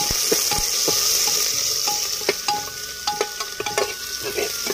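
Sliced onions sizzling as they deep-fry on high flame in hot mustard oil in an aluminium pot. A metal ladle stirs them, scraping and clicking against the pot, with several short ringing clinks.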